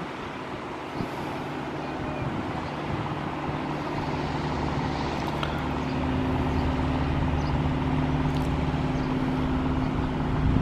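An engine running with a steady low hum that grows louder over the first few seconds and then holds.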